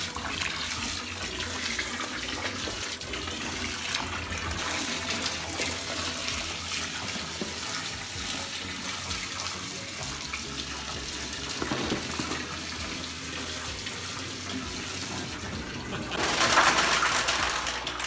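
Garden hose running water into a giant toilet bowl, a steady splashing pour as the bowl fills. A louder rush comes for about two seconds near the end.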